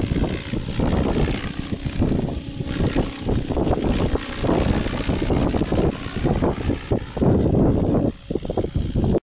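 Model helicopter flying under ArduCopter autopilot, its rotor and drive running steadily beneath heavy, gusting wind noise on the microphone. The sound cuts off suddenly near the end.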